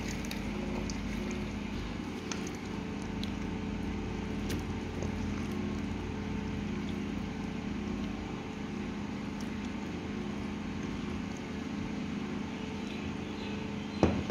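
Steady machine hum, a low drone holding one pitch, under a few faint clicks of a spoon serving salad into a ceramic dish. Near the end comes one sharp clink.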